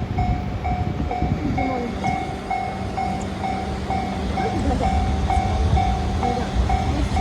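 Japanese railway level-crossing alarm ringing in the JR standard tone, about two dings a second, over the steady low rumble of a freight train rolling through the crossing.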